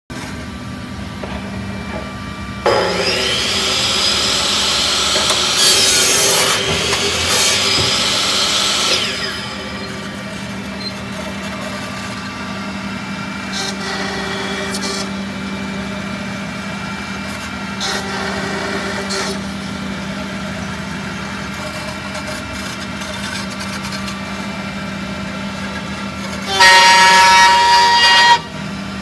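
CNC jamb router machining the end of a wooden mull post. A router spindle spins up with a rising whine about three seconds in and cuts for several seconds. Then a steady machine hum carries two short cutting passes, and a loud, high whine comes near the end.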